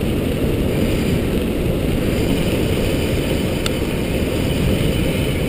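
Steady rumble and rush of a dog scooter rolling fast over a gravel road, with wind on the handlebar microphone.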